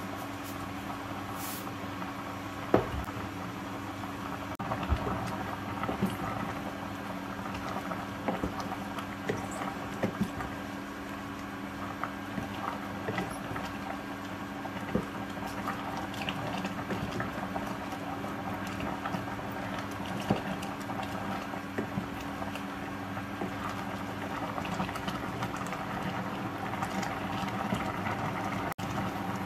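Vegetables in coconut-milk broth simmering in a stainless-steel pot on an induction hob, over a steady hum. Scattered clicks and scrapes come from a wooden spoon stirring against the pot, the sharpest about three seconds in.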